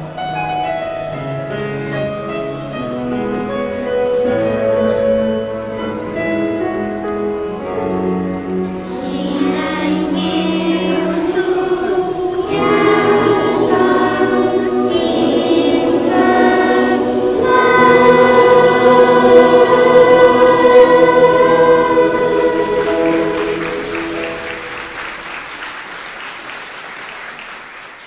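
Choir singing slow, sustained chords that swell to a long held final chord and then fade out, with applause rising near the end.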